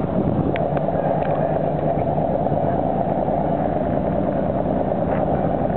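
A boat's engine running steadily underway, a dense, even low noise without change.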